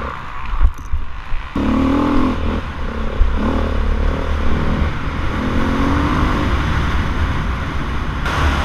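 Off-road motorcycle engine running hard and revving as the bike is ridden fast over a rough dirt trail, heard from a helmet camera with heavy wind rumble on the microphone. A few sharp knocks from bumps come in the first second and a half. The engine note climbs at about a second and a half.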